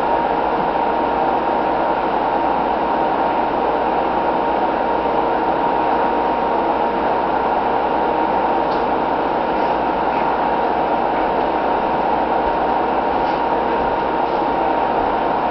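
A steady, unchanging mechanical-sounding noise with a constant mid-pitched hum through it, and a few faint ticks in its second half.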